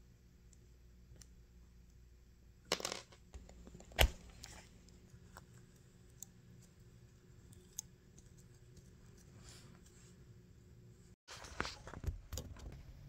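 Faint small handling noises from a miniature Christmas-light bulb being worked out of its plastic socket and its wire leads handled with needle-nose pliers, with two sharp clicks about three and four seconds in and a cluster of clicks near the end.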